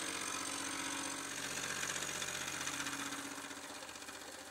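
Vertical milling machine running an indexable-insert face mill across the top face of a cast-iron pillow-block bearing casting: a steady machine hum that fades a little near the end.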